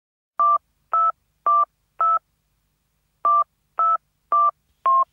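Touch-tone telephone keypad beeps dialing a number: four quick dual-tone beeps, a pause of about a second, then four more.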